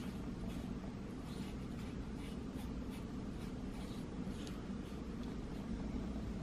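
Faint scraping and light tapping of a small spatula spreading glue across card inserts, in short irregular strokes over a steady low hum.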